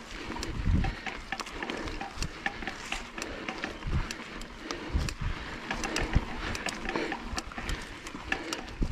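Mountain bike climbing a rooty trail: frequent short clicks, rattles and knocks from the bike over roots and bumps, with a few low thumps.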